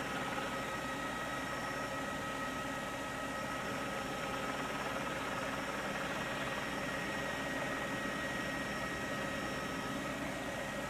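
Helicopter engine and rotor noise heard from inside the cabin: a steady drone with several constant whining tones over it.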